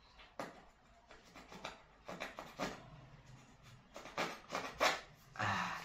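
Plastic lotion tube being handled and squeezed into a palm: a scatter of short rubbing and clicking handling noises.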